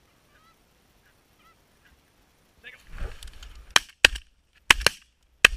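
Canada geese honking, faint at first and then louder as they come over the decoys, followed by a rapid volley of about five shotgun shots in under two seconds, the shots much the loudest.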